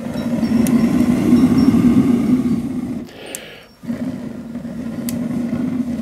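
Two long blows through a telescopic pocket bellows tube into a wood-stove fire, each a steady low hum with rushing air. A quick breath is drawn in between them, about three seconds in.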